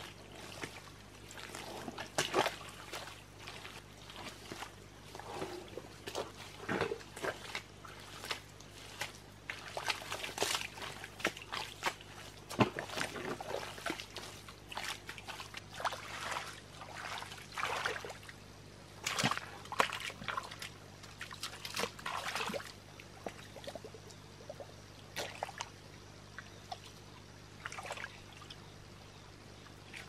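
Hands groping and scooping through mud and shallow muddy water: irregular splashes and sloshes, with water trickling off the hands between them.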